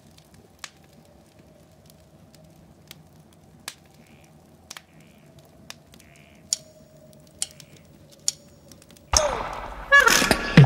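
Faint scattered crackles and pops of a fire over a low steady hum. About nine seconds in, the song's music comes in suddenly and loud.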